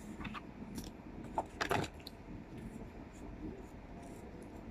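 Faint handling sounds of a smartphone and its packaging: a few light clicks and rustles, the loudest about one and a half to two seconds in, over low room noise.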